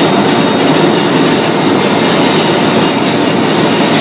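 BOPP extrusion lamination machine running steadily: a loud, even mechanical noise with a steady high whine across it.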